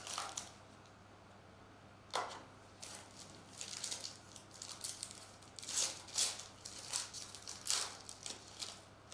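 A foil-wrapped trading card pack torn open and crinkled by hand: a run of short, sharp crackling rustles, thickest in the second half.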